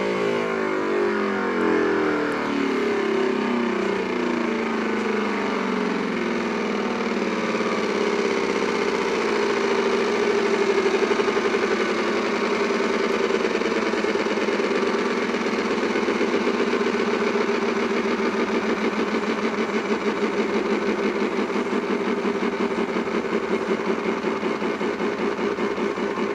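Strange electronic buzzing drone made of many stacked tones. The pitches slide downward over the first few seconds, then settle into a steady hum that wavers rapidly in the second half.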